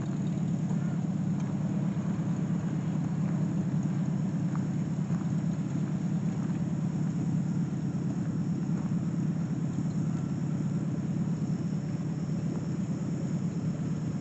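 A steady low rumble, like an engine running at an even speed, with no change in pitch or rhythm. A faint high buzz of insects sits above it.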